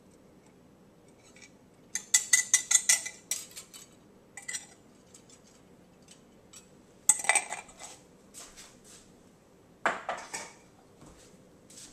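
A kitchen utensil scraping and clinking against a glass bowl as thick sauce is emptied out of it. A quick run of about eight clinks comes first, then a few shorter bursts of scraping.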